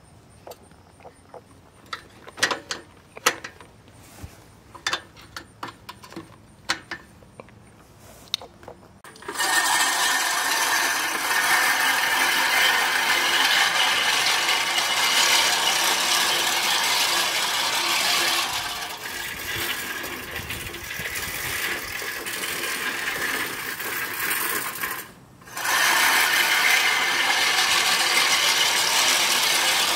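Sun Joe reel lawn mower: light scattered clicks for the first nine seconds, then the spinning cutting reel whirring steadily as it is pushed through tall grass, easing off for a stretch and breaking off briefly near the end before running again.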